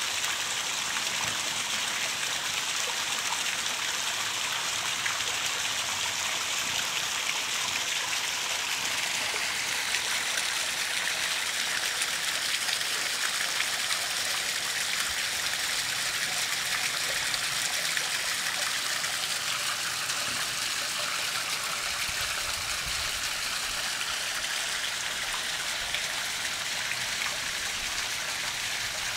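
Small garden-pond waterfall splashing steadily over rocks into the pond, a constant running-water sound.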